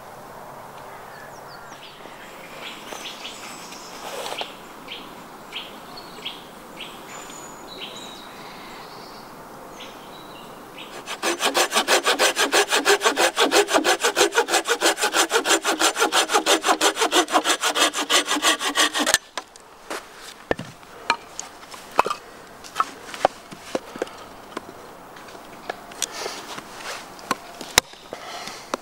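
Small hand saw cutting through a wooden branch in fast, even strokes for about eight seconds. Then come scattered sharp wooden knocks as a short stick is split on a chopping block by striking it with a wooden baton.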